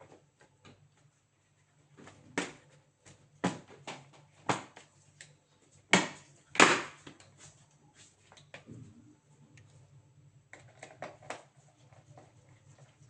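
Laptop parts being handled by hand: a series of sharp, separate clicks and knocks, the loudest about six to seven seconds in, with quieter clicking near the end.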